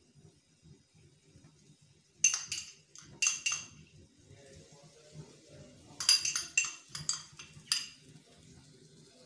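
A spoon clinks against a small bowl while toppings are tipped out over a pizza: two short groups of sharp, ringing clinks about two and three seconds in, then a longer run of about half a dozen clinks between six and eight seconds in.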